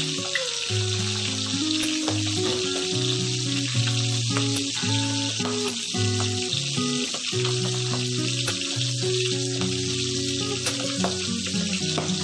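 Milkfish steaks frying in hot oil in a pan, a steady sizzle throughout, under background music of slow, held low notes.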